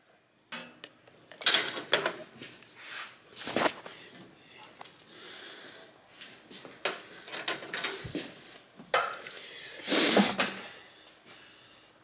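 Irregular clicks, knocks and light metallic clatter of hands working inside the sheet-metal housing of a Rivacold BEST refrigeration unit, unplugging the display's connector. A few louder knocks stand out, the loudest about ten seconds in.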